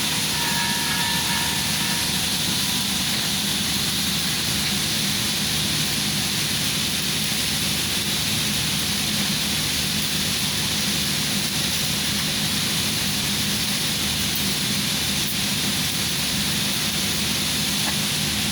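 Welding arc hissing and crackling steadily without a break, over a low machine hum.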